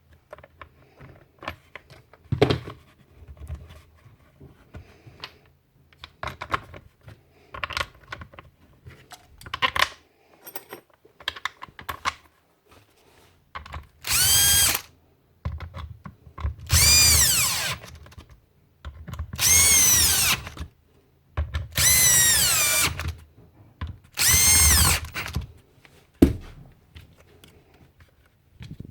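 Light clicks and handling, then a small electric motor runs in five short bursts of one to two seconds, each spinning up to a high whine and winding down.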